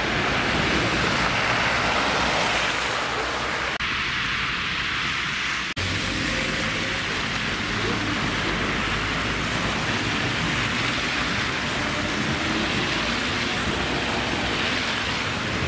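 Street traffic on a slushy, snow-covered road: car tyres hissing through wet slush as cars and a low-floor tram pass. The sound breaks off briefly and changes about four and six seconds in.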